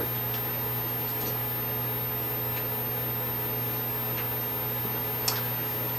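Steady low machine hum with a few faint steady tones above it, with one faint click near the end.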